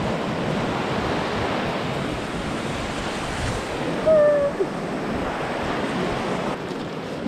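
Rushing mountain creek: a steady roar of white water flowing over rocks beneath a footbridge. About four seconds in, a woman gives a short 'ooh'.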